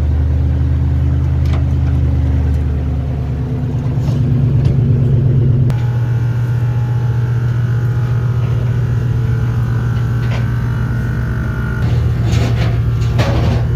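Truck engine idling with a steady low drone, its tone changing about six seconds in; a few knocks near the end.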